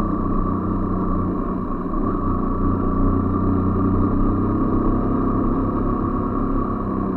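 Yamaha motorcycle's engine running steadily at low road speed, with road and wind noise.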